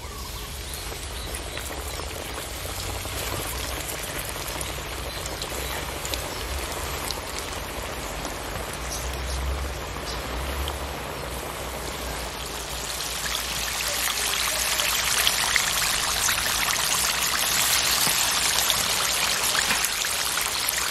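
Battered chicken tenders deep-frying in hot oil at about 180 °C in a stainless steel pot: a steady sizzle with fine crackling. It grows louder from a little past halfway as more pieces go into the oil.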